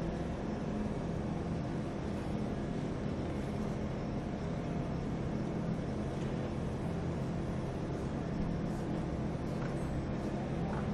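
Steady low mechanical hum over a faint even outdoor haze, with no voices.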